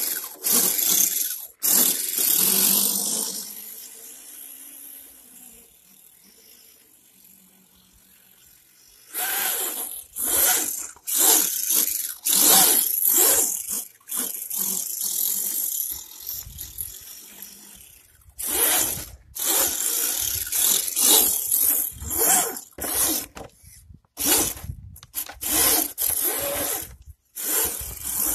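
Electric RC crawler truck driven in repeated bursts of throttle: motor and gear drivetrain whirring, with tyres scrabbling and spraying dirt. The bursts start and stop many times, with a quieter stretch in the first third.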